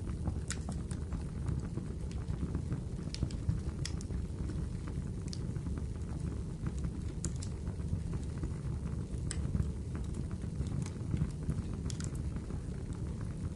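Wood fire burning in a fireplace: a steady low rush of flames with scattered sharp crackles and pops every second or two.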